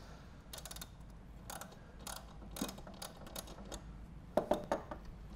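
Small ratchet wrench clicking in short bursts as it backs out bolts on the frame of a reloading press, with a louder cluster of clicks about four and a half seconds in.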